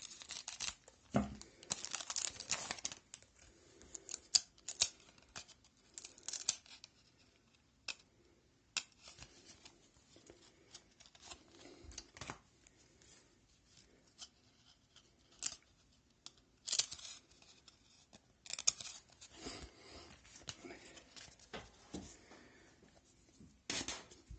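A foil wrapper on a Pacific hockey card pack being opened by hand, crinkling and tearing in short, irregular bursts. The cards inside are then handled.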